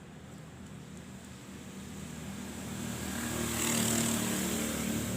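A motor vehicle engine approaching: a steady low hum that grows louder over the first few seconds, then holds.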